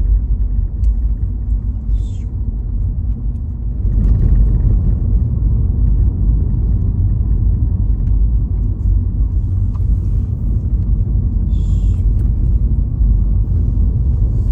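Volkswagen Jetta on the move, heard from inside the cabin: a steady low road and engine rumble that grows louder about four seconds in. Two brief hisses come through, one about two seconds in and one near the end.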